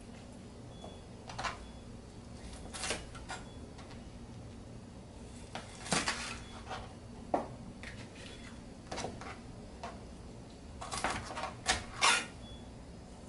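A knife cutting whole chicken wings apart at the joints, with irregular sharp knocks, the loudest about halfway through and near the end. A steady low hum runs underneath.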